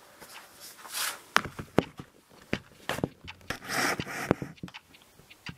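Kraft paper coffee-bean bag being handled close up: papery rustling and crinkling with several sharp clicks and taps.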